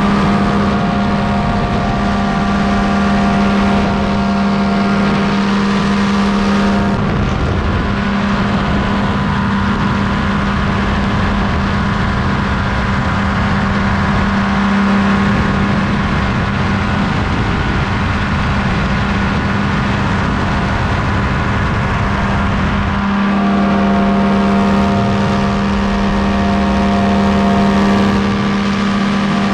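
Tandem paramotor's engine and propeller droning steadily in cruise flight, overlaid by heavy wind rushing over the microphone. The engine's pitch holds steady throughout, while the wind rush grows stronger for a long stretch in the middle.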